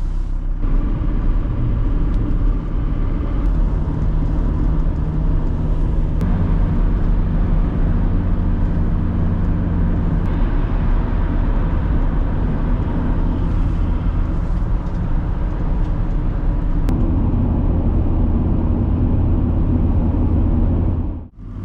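Car engine and road noise heard from inside the moving car, a steady drone whose engine note shifts about six seconds in and again near seventeen seconds. The sound drops away briefly just before the end.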